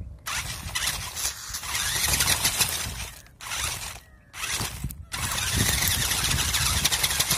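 Onboard sound of an RC off-road truck driving over gravel: drivetrain whine and tyres crunching on stones, heard up close. It runs in long bursts and cuts out briefly three times in the middle.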